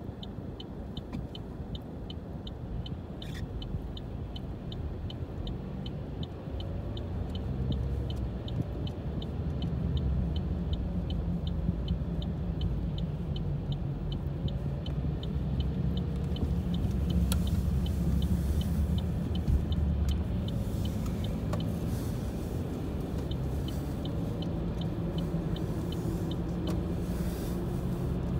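A car's turn-signal indicator ticking evenly, about three ticks a second, over engine and tyre noise heard from inside the cabin. The ticking stops about halfway through while the road noise grows louder as the car drives on, then ticks again briefly near the end.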